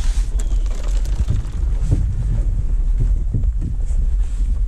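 Steady low rumble of wind and handling on a camera microphone mounted on a canoe, with several dull knocks as the canoe is carried and lowered.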